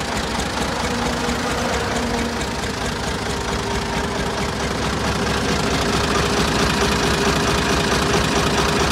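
Ford 4600 tractor's three-cylinder engine idling steadily and smoothly.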